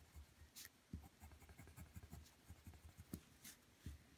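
Faint scratching of a coloured pencil on paper as it draws short back-and-forth zigzag strokes.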